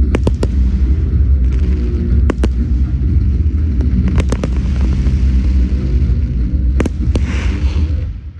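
Fireworks display: a continuous deep rumble of shell bursts with sharp reports every second or two, some in quick pairs, and a spell of crackle near the end. The sound drops away suddenly just before the end.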